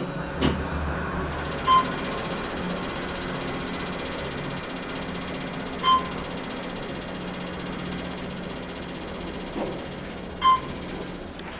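Otis traction elevator car running upward: a steady mechanical hum and whir of the moving car, with three short electronic chime tones about four seconds apart. The running noise drops off at the very end.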